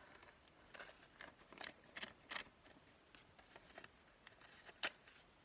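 Faint handling of paper craft pieces: a run of brief rustles and taps, then one sharp click about five seconds in.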